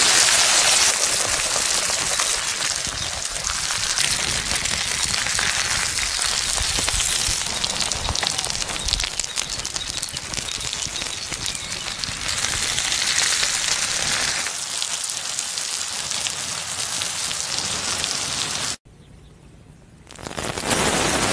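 Food sizzling and crackling in a hot pan: a steady hiss with many small pops. It cuts out abruptly near the end and comes back about a second and a half later.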